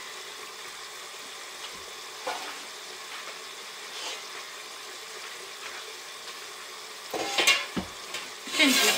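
Steady faint hiss, then from about seven seconds in, a run of metallic clanks and scrapes as a stainless steel couscous steamer pot is handled and set down.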